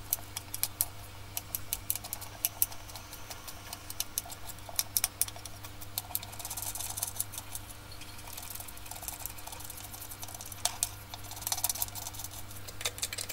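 Kitchen knife slicing tomato and onion on a wooden cutting board: a run of irregular light taps of the blade on the board, over a low steady hum.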